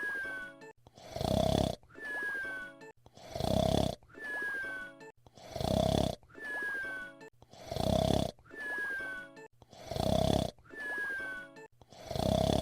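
Cartoon whistle-snore voiced by an actor: a loud rasping snore on each in-breath, then a short whistle that falls in pitch on the out-breath. The cycle repeats evenly about every two seconds.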